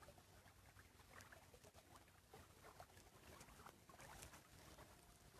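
Near silence: room tone with faint, scattered small clicks and rustles.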